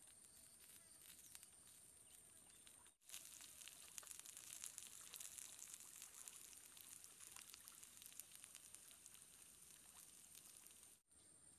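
Faint sizzling of pork pieces frying on a hot flat stone over a wood fire. A dense crackle of small pops starts abruptly about three seconds in and stops abruptly near the end, with only a quieter hiss before it.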